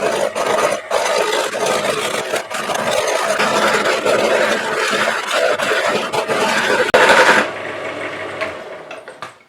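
Wood lathe running with a gouge cutting into an out-of-round wooden blank to rough it down, a loud, dense cutting noise over the motor's hum. The cutting stops about seven seconds in, and the motor hum fades out soon after.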